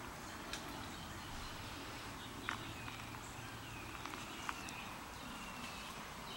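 Quiet outdoor ambience: a steady low hiss with a few soft clicks and faint, thin, high bird chirps.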